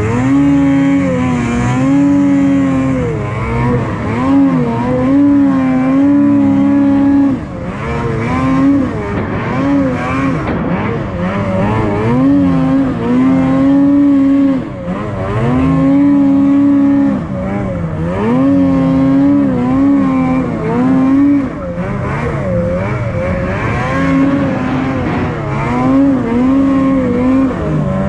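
Ski-Doo 600R E-TEC two-stroke snowmobile engine under load on a climb through deep snow. Its revs rise and fall again and again as the throttle is worked, easing off briefly several times.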